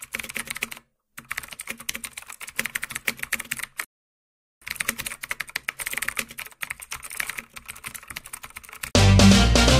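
Computer-keyboard typing sound effect: rapid runs of keystrokes, breaking off briefly about a second in and again for about half a second near the fourth second. Near the end, loud music with a heavy bass comes in.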